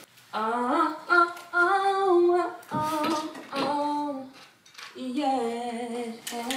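A woman humming a wordless tune: several short phrases of held notes that step up and down, with brief pauses between them.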